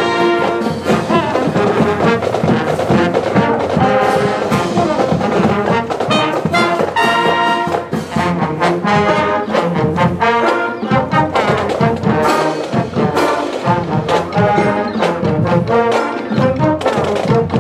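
Marching band playing as it passes: saxophones, trumpets, trombones and sousaphones carry the tune over a steady beat from snare and bass drums.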